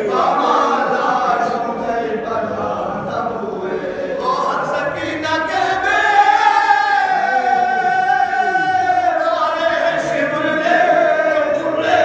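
A group of men chanting a marsiya, an Urdu elegy, together without instruments: the lead reciter with supporting voices. They hold one long, drawn-out note through the middle.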